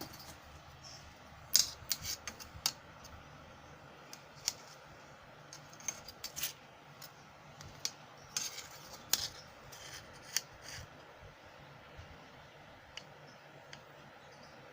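Irregular sharp clicks and light clinks of small hard objects being handled, in two busy spells with a few single ticks between and after.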